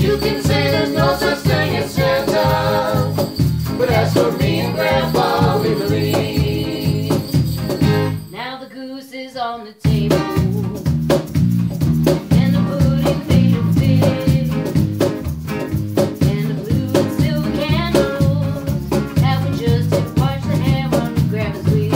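Small band playing live: several voices singing over a strummed acoustic guitar, an electric guitar and a steady low beat. About eight seconds in, the beat and guitars stop for a moment, leaving a faint sliding tone, then the whole band comes back in sharply.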